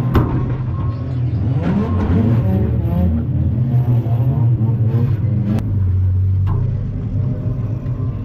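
Banger racing car's engine running and revving, heard from inside the stripped cabin, with a sharp bang just at the start as it meets another car and two lighter knocks later on.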